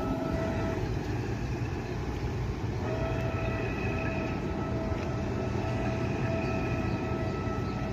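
Express riverboat's Volvo Penta diesel running as the boat pulls away: a low rumble with a steady high whine on top. The whine stops a little under a second in and returns at the same pitch about three seconds in.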